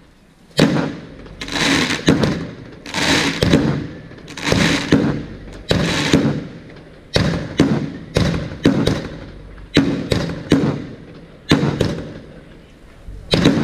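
Fireworks going off in a rapid series: sharp bangs one or two a second, each trailing off over about half a second.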